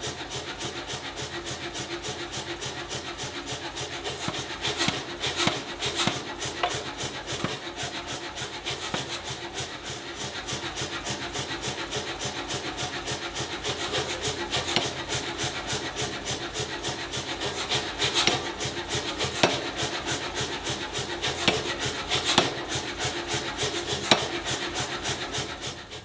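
Fast, even rasping strokes of a hand tool scraping back and forth, with a steady hum underneath.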